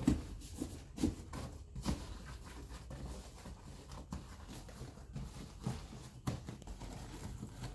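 Hands tucking a fabric upholstery cover into a massage chair's frame: irregular soft thumps and rustling of cloth.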